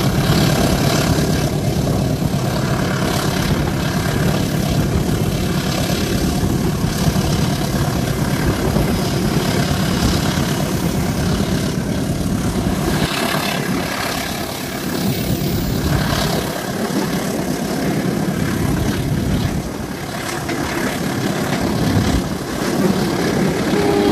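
CC203 diesel-electric locomotive's engine running under load, a steady low drone heard from the train over the running noise of the wheels on the rails.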